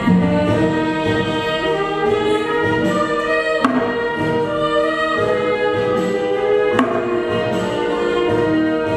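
Song with women's voices and instrumental accompaniment, moving through long held notes, with two sharp hits about three seconds apart.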